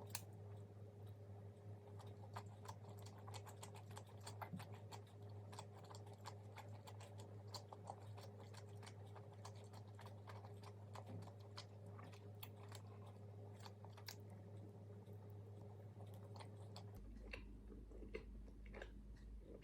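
Close-miked chewing and crunching of crispy fried food: a dense run of small crisp crunches over a low steady hum. The crunching thins out about 17 seconds in, when the background hum changes.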